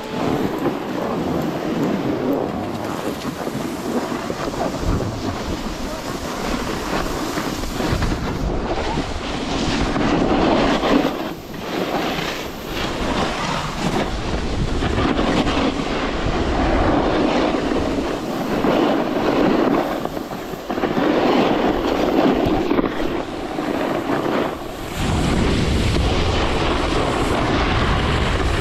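Snowboard scraping and sliding over groomed snow during a run, mixed with wind rushing over the camera microphone. The noise swells and drops back every few seconds.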